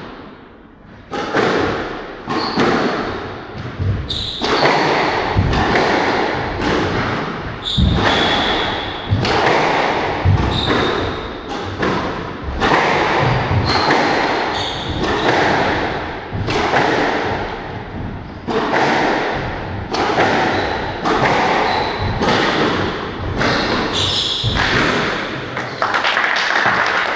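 Squash rally: the ball struck by rackets and smacking against the court walls about once a second, each hit ringing briefly in the hall, with short high squeaks of court shoes on the floor between hits.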